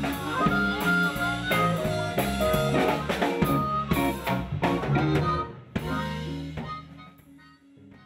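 Blues band playing live: electric guitar, drum kit with regular hits, and held notes that fit a harmonica. About six seconds in the playing drops away, leaving a faint tail of lingering notes.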